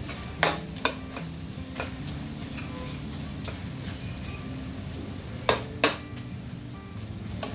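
Stainless steel ladle stirring and scraping thick spice masala around a stainless steel kadai, with a faint sizzle of frying oil. The ladle clinks sharply against the pan twice in the first second and twice in quick succession about five and a half seconds in.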